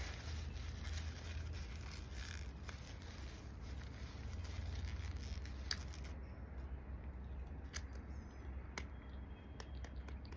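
Quiet mouth sounds of eating a burger and fries: soft chewing with small clicks and crisp snips, over a steady low hum.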